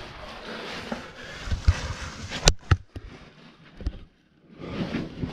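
Rustling and scraping as a caver shifts his body over loose rock rubble on a cave floor, with a few sharp clicks of stones knocking together, the loudest about two and a half seconds in.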